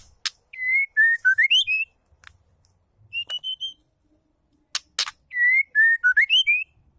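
White-rumped shama whistling: a phrase of clear, gliding notes that rises at its end, sung twice, with sharp click calls between and a short series of higher whistled notes about three seconds in.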